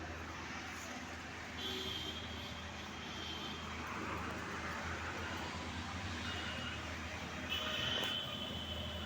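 Street traffic: a steady low engine rumble under road noise, with two brief high-pitched tones, one about two seconds in and one near the end.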